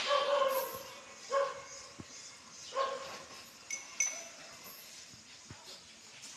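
An animal calling three times in short pitched calls, the first the longest, followed by two light clinks.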